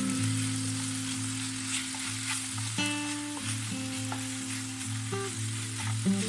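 Chicken pieces with chestnuts and mushrooms sizzling in a hot pan as they are stirred, with steady background music.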